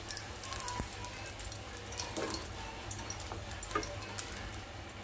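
Hot oil crackling and sizzling faintly in a non-stick kadai as fried okra pieces are scooped out with a slotted spoon, with a few light clicks from the spoon against the pan.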